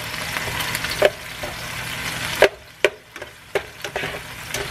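Diced onions sizzling in oil in a nonstick frying pan while a plastic slotted spatula stirs them, with a few sharp clicks of the spatula against the pan. The sizzle drops for a moment past the middle, then comes back.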